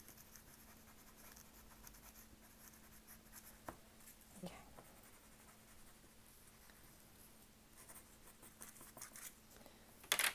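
Faint scratching of a colored pencil shading on paper, with a couple of light taps midway. Near the end comes a sharp clack as a pencil is put into a metal pencil tin.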